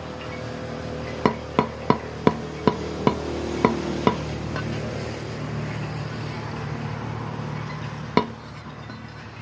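Knife chopping on a cutting board: about eight quick strokes at roughly three a second in the first few seconds, then a single stroke near the end, over a steady low hum.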